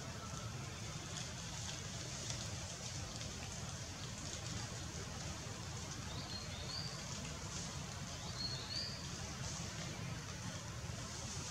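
Outdoor forest ambience: a steady low rumble under a hiss, with a bird giving a short high double chirp about halfway through and again two seconds later.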